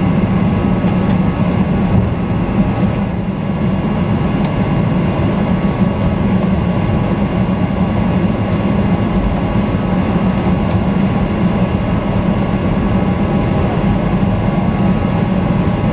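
Cabin noise inside a Boeing 737 taxiing after landing: the jet engines running at taxi power as a steady low hum, with the cabin air hiss over it.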